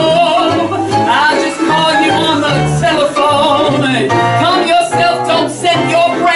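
A woman singing into a microphone over live instrumental backing, with low bass notes that change about twice a second under her voice.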